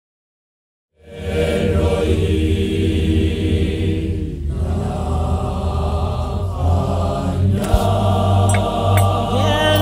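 Gospel choir singing slow, held chords in a chant-like style, starting about a second in after silence. A single brief knock sounds about three-quarters of the way through.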